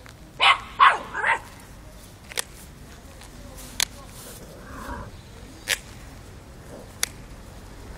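Miniature Pinscher puppy barking three times in quick succession, high and sharp. A few short, sharp sounds follow at intervals of a second or more.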